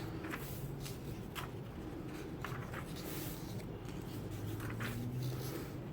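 Pages of a Bible being leafed through by hand: soft, scattered rustles of thin paper as the leaves are turned.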